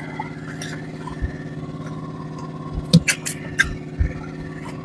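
A small engine running steadily, a low even drone. A few sharp clicks and knocks come over it about three seconds in.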